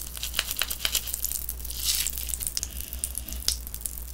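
Close-miked wet crackling and squishing as soft grilled watermelon flesh is torn apart by hand on a plate, with a sharper click about three and a half seconds in.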